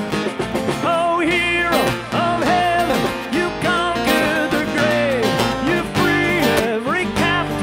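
Live band music: drums, bass guitar, acoustic and electric guitars, with a lead melody line that slides and bends in pitch.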